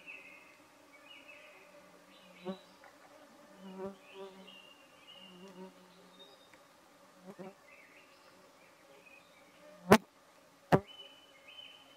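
Buzzing insects near the microphone, with birds singing, a few small splashes, and near the end two loud, sharp splashes less than a second apart as two Eurasian beavers grapple in the water in a territorial fight.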